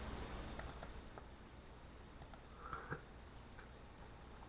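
A few faint, scattered clicks over quiet room tone.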